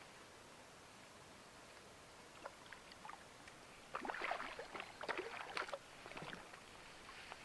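Water splashing as a carp is grabbed by hand and hauled out of the water, a few light splashes and drips first, then a burst of thrashing splashes about four seconds in.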